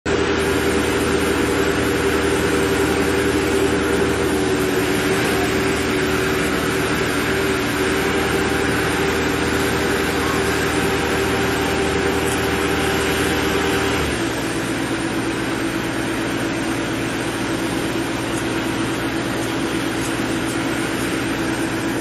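An engine running steadily with a constant drone. About two thirds of the way through it drops abruptly to a lower, softer pitch, as when the throttle is eased off.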